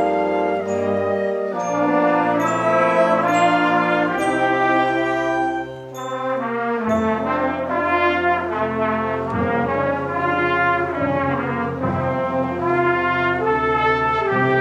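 School concert band playing, woodwinds and brass together: held chords that shift, a brief dip in volume about six seconds in, then quicker-moving notes.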